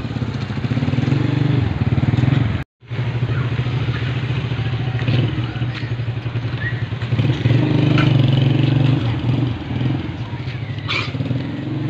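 A motor engine running steadily, swelling and easing several times, with a brief total dropout about three seconds in.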